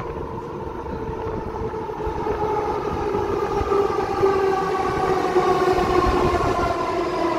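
Electric metro train pulling into an underground station: a whine of several tones that slowly fall in pitch, growing louder as the train approaches along the platform.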